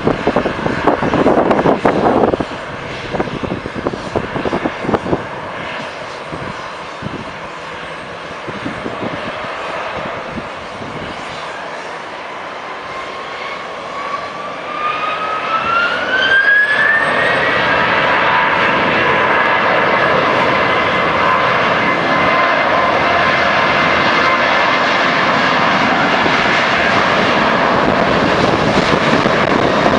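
Boeing 737-700's CFM56-7B turbofan engines spooling up for takeoff: a whine climbs in pitch from about twelve seconds in, then settles into the steady roar and high whine of takeoff thrust. Wind buffets the microphone in the first couple of seconds.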